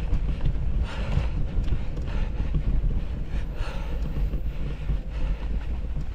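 Wind buffeting the GoPro's microphone as a mountain bike is ridden at speed, with a deep steady rumble and short irregular rattles and crunches from the bike and its tyres on the trail.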